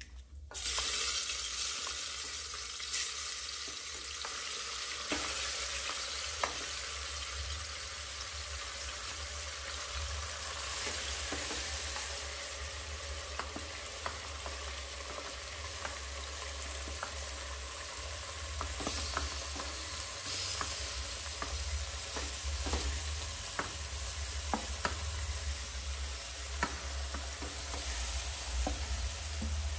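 Marinated mutton and onions hitting hot mustard oil in a pressure cooker: a sizzle that starts suddenly about half a second in and keeps up steadily while a wooden spatula pushes and stirs the meat, with scattered short clicks and scrapes.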